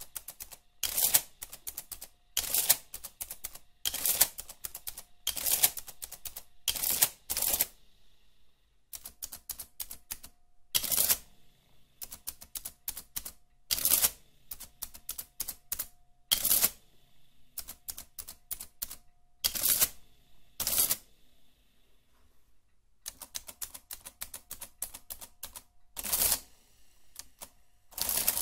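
Olivetti Multisumma 20 electromechanical adding machine running calculations with its covers off. Its mechanism makes rapid runs of sharp clicks broken by loud clacks at irregular intervals, with short lulls about eight and twenty-two seconds in.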